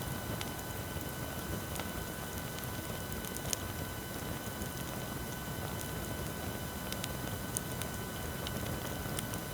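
Wood bonfire burning, with scattered sharp crackles and pops over a steady hiss. A faint steady electronic whine from a recording-equipment fault runs under it.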